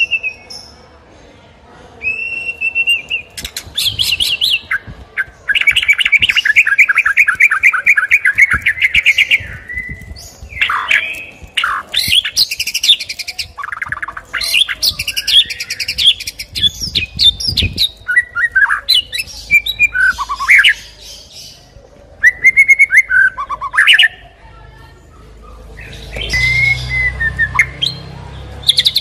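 White-rumped shama (murai batu) singing a long, varied song: loud whistled phrases and pitch glides mixed with rapid trills, including a fast run of repeated notes about six to nine seconds in.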